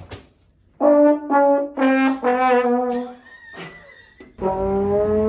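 Sad-trombone sound effect: four brassy "wah" notes stepping down in pitch, then after a short gap a longer note that slides upward near the end.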